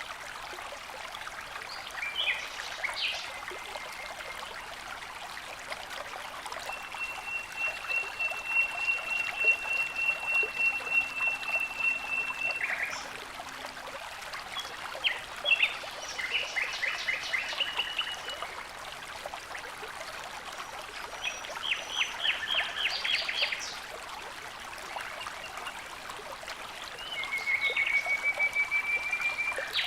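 Water flowing and trickling steadily, with birds singing over it: one long steady whistle, a few rapid trills, and a slightly rising whistle near the end.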